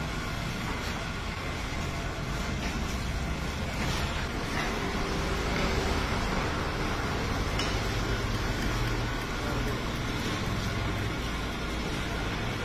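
Motor-driven stone chekku (rotary mortar-and-pestle oil mill) running, its pestle turning and grinding groundnuts in the stone mortar. It makes a steady mechanical noise with a low hum throughout.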